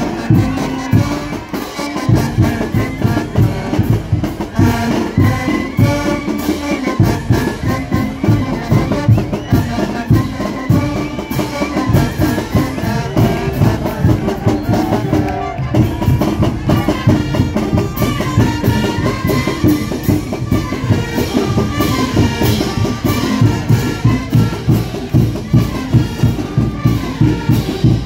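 Student brass band playing dance music: trumpets and other brass carry the melody over a steady drum beat.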